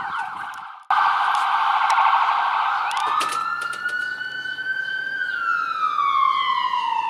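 Ambulance siren sounding a fast yelp, then about three seconds in switching to a wail that rises slowly and then falls.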